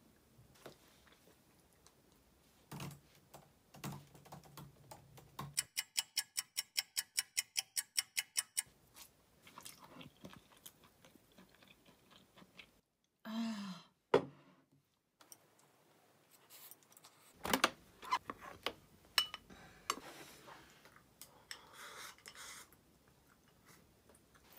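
Someone eating at a table: chewing and chopsticks knocking against dishes, with scattered small clinks. A few seconds in comes a run of quick even ticks, about seven a second for around three seconds.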